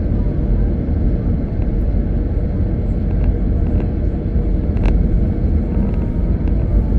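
Steady low rumble of a car driving at speed on an expressway: tyre and road noise with the engine underneath. A faint click comes about five seconds in.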